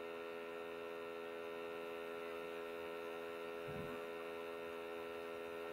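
Steady electrical mains hum on the call's audio line, a buzzy stack of even tones holding level throughout. A faint, brief low sound comes a little before four seconds in.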